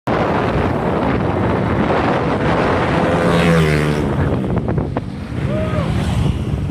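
Loud wind buffeting the microphone over a running motor vehicle engine, whose pitch sweeps and falls about halfway through.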